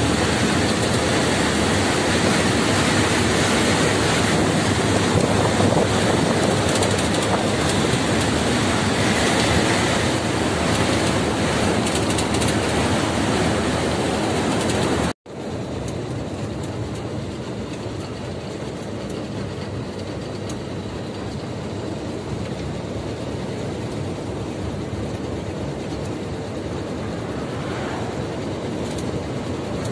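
Dust-storm wind rushing against a moving lorry's cab over its running noise. About halfway it cuts off suddenly and gives way to the steadier, quieter engine and road noise of the lorry driving on the highway.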